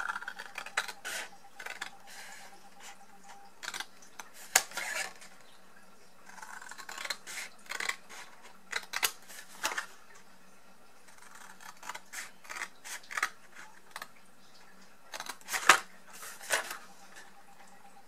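Scissors snipping through cardstock, cutting slits along scored lines: several short runs of snips with quiet pauses between them.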